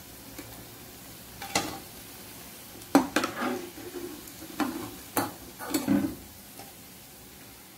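Slotted metal spoon scraping and knocking against an aluminium kadhai as fried balls are lifted out of hot oil, over a faint sizzle of the frying oil. About six sharp scrapes and clinks, starting about a second and a half in and ending around six seconds.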